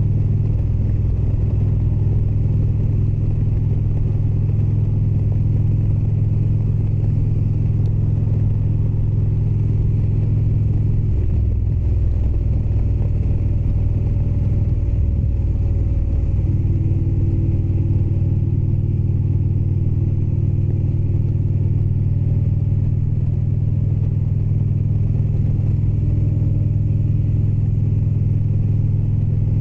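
Indian Springfield motorcycle's V-twin engine running steadily while riding on the road, with its note shifting briefly about halfway through.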